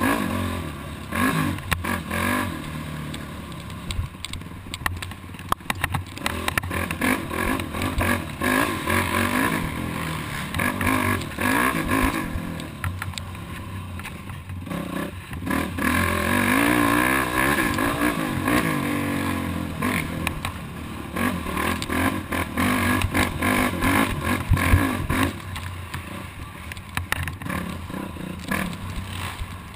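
Yamaha YFZ450R quad's single-cylinder four-stroke engine revving up and falling back again and again under hard riding, with frequent clattering knocks.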